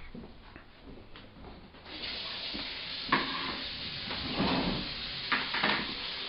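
Egg frying in a nonstick pan: a steady sizzle starts about two seconds in, with a few sharp scrapes and taps of a slotted spatula against the pan.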